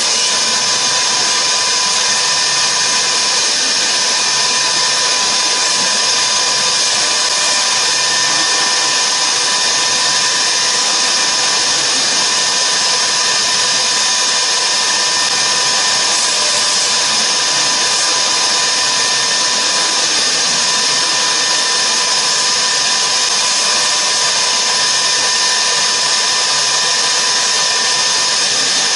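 CNC router spindle running steadily as it carves a polystyrene foam block turned on a rotary axis: a continuous high whine with cutting hiss.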